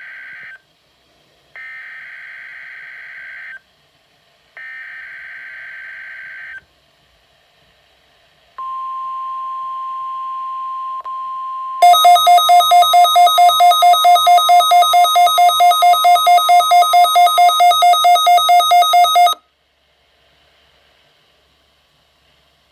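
NOAA Weather Radio Required Weekly Test coming through a Midland WR-120EZ weather radio's speaker. It starts with three screechy SAME data bursts, the first already under way, then a steady single-pitch alert tone from about 8 seconds in. From about 12 seconds in the radio's own alarm beeps loudly, about four times a second, over the tone, and it stops about 19 seconds in.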